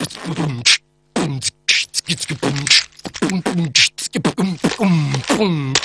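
Beatboxing by mouth: a steady beat of short kick-drum booms that fall in pitch, with sharp snare-like clicks and hissing hi-hat sounds between them.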